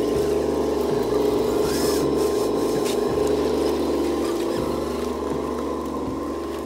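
Background music with a low bass line stepping between notes about once a second, over a steady whine from the electric motor and gearbox of a Tamiya Globe Liner RC truck driving. The sound fades slowly as the truck moves away.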